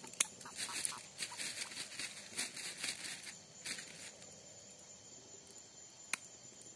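Handling noise of hands working with small fishing gear: a quick run of crinkling, rustling clicks for about four seconds, then one sharp click near the end. Crickets chirp steadily behind it.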